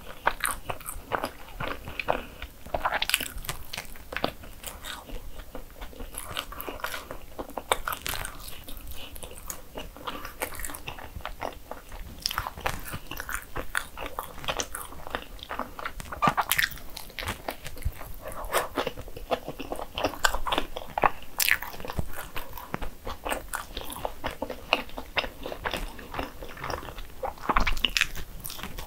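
Biting into and chewing a dense bagel sandwich filled with green-onion egg mayonnaise. Many short wet mouth clicks and smacks, with louder bites now and then.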